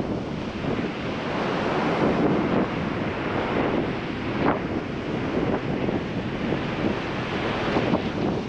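Ocean surf breaking in lines and washing up a sandy beach, a continuous rush that swells and eases as each wave comes in. Wind buffets the microphone underneath.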